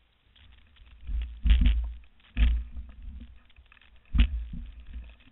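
Camera handling noise: a run of heavy, low rumbling thumps and knocks, the loudest about one and a half, two and a half and four seconds in, with faint clicks and rustles between them.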